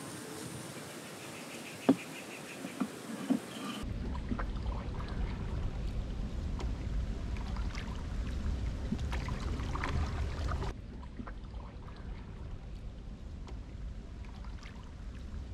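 Wooden paddle dipping and pulling through river water as a canoe is paddled, with water trickling and a low rumble under it. A few sharp knocks come in the first seconds, the loudest about two seconds in, and the sound drops quieter about eleven seconds in.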